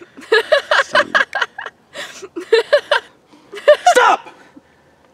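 A man laughing loudly in several bursts of quick ha-ha pulses, the loudest burst near the end.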